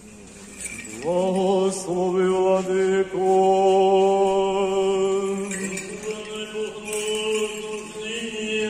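Orthodox memorial-service (panakhyda) chant: voices singing in long, held notes, starting about a second in.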